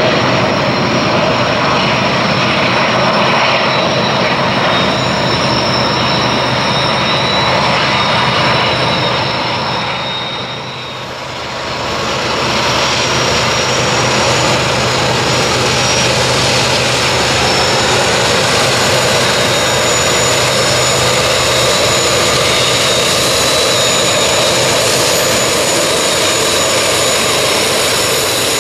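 Norfolk Southern diesel-electric freight locomotives running past, their engines making a loud, steady drone that grows as they come close. The sound dips briefly about eleven seconds in, then picks back up.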